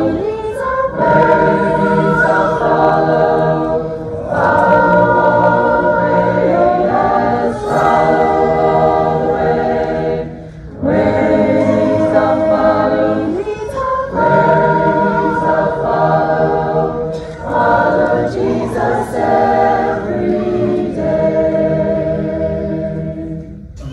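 A group of voices singing a hymn a cappella in harmony, in phrases of a few seconds with short breaks between them.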